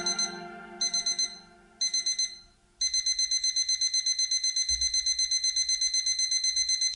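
Digital alarm clock beeping: short groups of four quick high beeps about a second apart, then unbroken fast beeping at about eight beeps a second. The song's music fades out underneath in the first couple of seconds.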